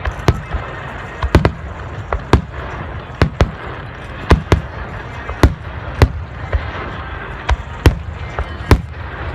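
Aerial fireworks shells bursting in quick, irregular succession, about two loud booms a second, over a steady hiss between the bursts.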